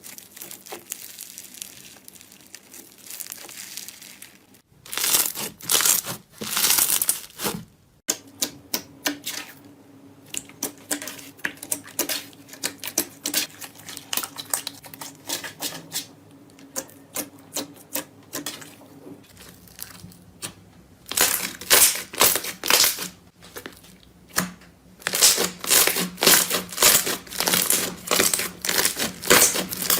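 Crisp crackling and rapid clicking of a crunchy material being pressed and crushed, in a run of short clips. The crackling is densest and loudest about 5 to 8 seconds in and again in the last nine seconds, with sparser, more even clicks in between.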